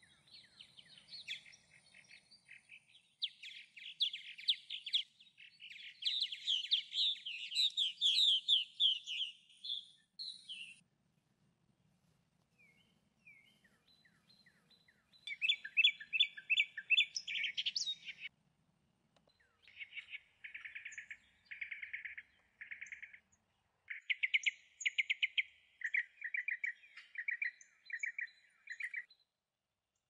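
Birds calling in bursts of rapid trilled notes, a second or few long each, some falling in pitch, with a lull about a third of the way through.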